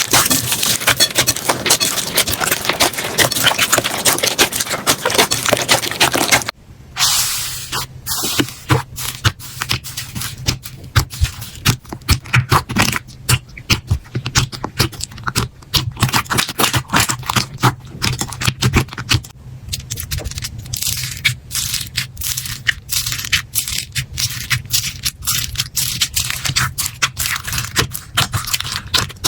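Slime being squeezed and pressed by hand: a dense, continuous crackling for the first six seconds or so, then, after a sudden break, a quick run of sharp clicks and pops.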